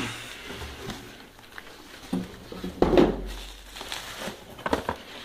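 Bubble-wrap packing crinkling and rustling as a small cardboard box is pulled out of it and handled, in a few short bursts. The loudest burst comes about three seconds in, and there are some sharp clicks near the end.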